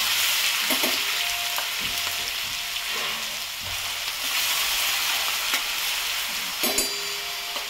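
Crushed green chilli and garlic paste sizzling in hot oil in a stainless steel pan, with a steel spatula stirring and scraping against the pan now and then. The sizzle slowly dies down.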